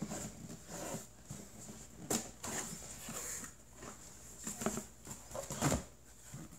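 Cardboard toy box being opened and handled: flaps pulled open and the box shifted and rubbed as hands reach in for the toy, with a couple of sharper knocks.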